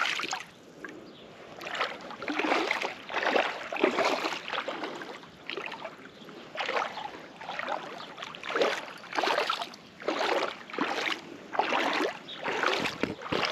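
Water sloshing and splashing in repeated swells, roughly once a second.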